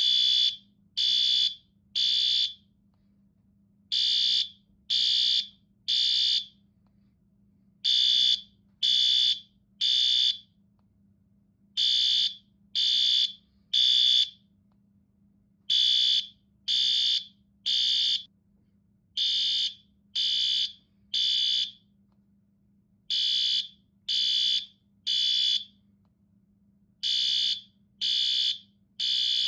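Fire alarm sounding a high-pitched beep in repeated groups of three, each group followed by a short pause. This is the temporal-three pattern that signals evacuation.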